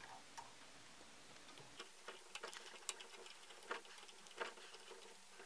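Faint, irregular small clicks and ticks of a hex key turning a set screw in a telescope focus motor's coupling collar as it is tightened, with light handling of the parts.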